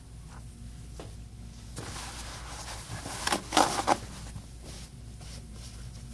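Cloth or wipe rubbing over the bare LCD of a Samsung Galaxy S3 during cleaning, a soft rustle that builds to a few louder scraping strokes about three and a half seconds in, over a low steady hum.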